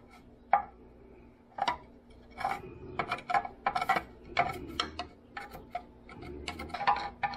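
A hand scraper scraping and clicking against loosened old grease and grime inside a pocket of a Bridgeport milling machine casting, in short irregular strokes several times a second.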